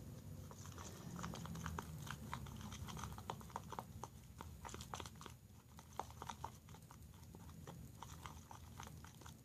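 Spoon stirring a sticky glue-and-toothpaste slime mixture in a bowl, making faint, irregular clicks and taps.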